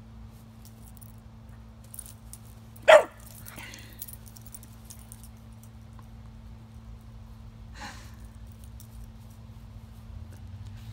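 Dog barking once, short and loud, about three seconds in, then a second, fainter bark about five seconds later.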